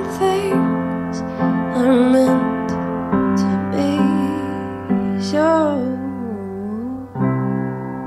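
Background music: a slow song with piano and a sung melody that glides between notes near the middle.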